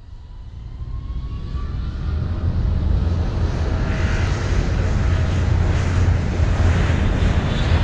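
Jet airliner cabin noise heard from a window seat over the wing: a steady low rumble of engines and airflow with a hiss above it, growing louder over the first two or three seconds, then holding steady.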